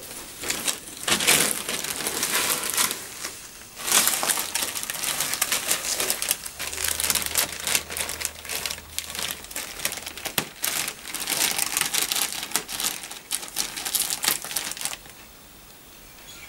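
Plastic bag crinkling as a cat pushes its head into it and squirms about inside, in three long bouts with short breaks, stopping shortly before the end.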